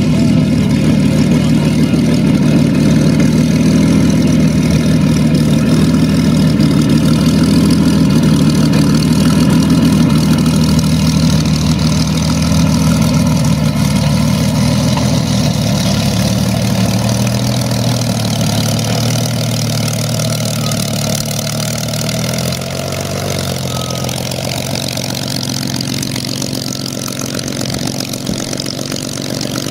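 Rolls-Royce Merlin V12 of a Mk IX Spitfire running at low power as the aircraft taxis, a steady deep engine note with the propeller turning. It grows a little quieter in the second half.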